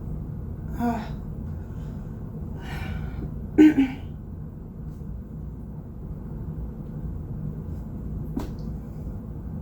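A person's hiccups: a short sharp hic about a second in and a louder one at about three and a half seconds, with a breathy intake of breath between them, over a steady low rumble.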